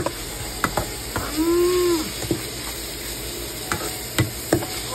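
Ground pork and red bell pepper sizzling in a frying pan as a spatula stirs it, with sharp scrapes and knocks of the spatula against the pan. A brief pitched tone rises and falls about a second in.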